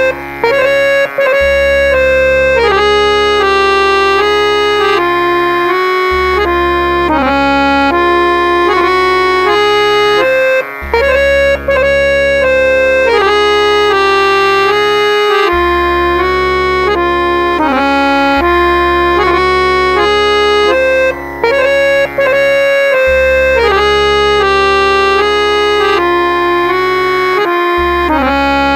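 Harmonium playing a lehra in raga Bihag, tuned to C#: a melodic phrase over a low held bass note, repeating with each 14-beat Ada Chautaal cycle about every ten and a half seconds.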